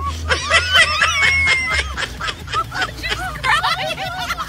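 A group of people laughing and chattering over one another.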